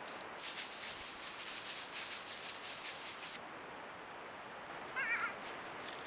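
Night-time forest ambience picked up by a trail camera: a steady hiss and a steady high tone, a high pulsing chirr through the first half, and one short wavering animal call about five seconds in.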